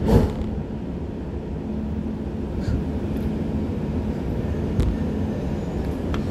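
Dubai Metro Alstom train heard from inside the car in an underground station, a steady low rumble and hum as it creeps along the platform. A single sharp knock right at the start and a faint click about five seconds in.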